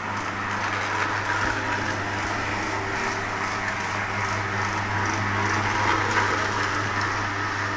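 Single-disc rotary floor polisher running steadily: a constant low motor hum under the even whir of its pad buffing a marble floor, at the stage where the marble is already coming up shiny.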